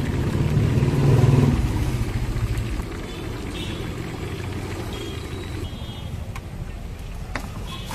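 A low rumble, loudest in the first three seconds, then easing to a quieter steady background.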